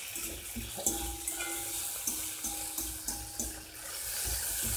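Chopped onions, scallion and peppers sizzling in a hot frying pan while a spatula stirs them, scraping across the pan again and again at uneven intervals.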